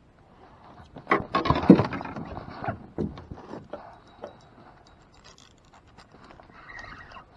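Scraping and rustling of fishing gear and a jacket sleeve being handled right against the microphone, loudest from about one to three seconds in, followed by scattered light clicks and knocks.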